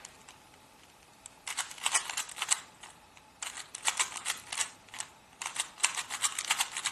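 A plastic 3×3 Rubik's cube being turned quickly by hand, its layers clicking rapidly. The clicking comes in three bursts of fast turns with short pauses between, starting about a second and a half in.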